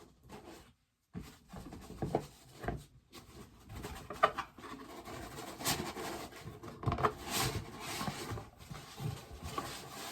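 Packaging being handled during an unboxing: irregular rustles, scrapes and light taps.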